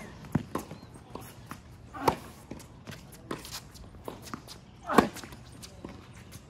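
Tennis ball struck by racket during a baseline rally on a hard court, with two loud hits about 2 and 5 seconds in. Fainter knocks between them are ball bounces, the far player's strokes and footsteps on the court.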